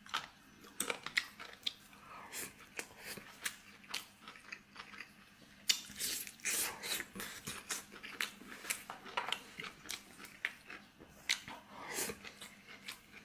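A person eating tomato-stewed pork ribs with rice close to the microphone: chewing and biting, heard as many short, irregular wet smacks and clicks.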